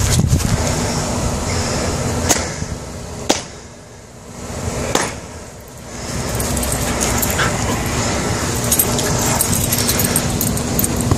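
McNab dog barking over a steady rustling noise, with a few sharp knocks in the first half.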